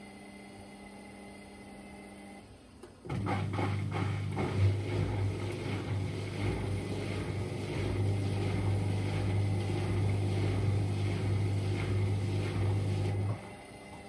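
Indesit IWDD7143 washer dryer tumble drying: the drum motor starts about three seconds in with a steady hum and a regular knocking of clothes tumbling, roughly two knocks a second. It runs about ten seconds and stops near the end, leaving a quieter steady hum between drum turns.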